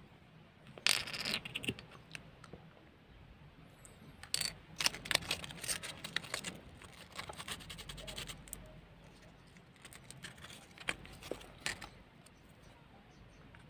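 Sandpaper scratching against the plastic back of a Xoss G bike computer in short, irregular spells of strokes. The back is being sanded again so the new mount's glue will grip.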